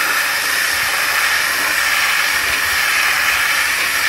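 Steady loud hiss of a 500-bar water jet mixed with abrasive, blasting against a steel panel to strip rust, concrete and old paint down to bare metal.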